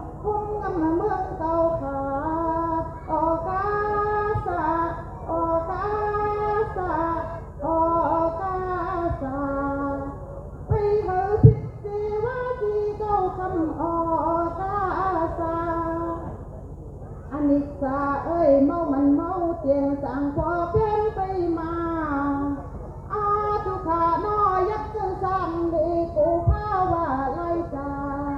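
A woman singing a slow, sustained melody into a handheld microphone, amplified over a steady low hum. A sharp knock comes about eleven and a half seconds in.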